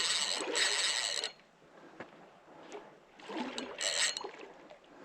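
Water splashing in two short bursts, the second about three seconds in.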